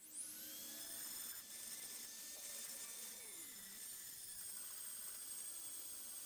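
High-speed rotary tool with a ball-shaped burr starting up with a quick rising whine, then running steadily at a high pitch as it grinds the steel between a claw hammer's claws.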